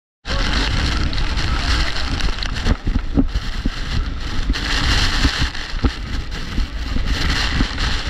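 Large waterfall plunging into a pool close by: a steady rush of falling water, with spray-laden wind buffeting the microphone in uneven low rumbles.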